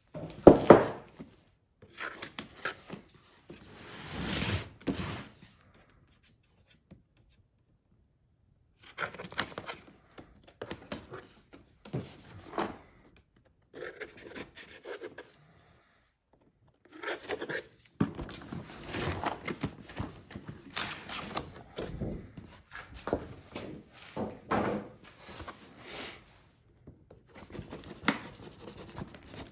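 Cardboard box being opened and unpacked: intermittent tearing, rubbing and scraping of cardboard and packaging, with short pauses between bouts and a sharp knock about half a second in.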